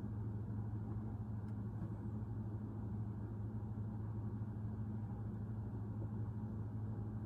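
Steady low machine hum with a constant pitch and level.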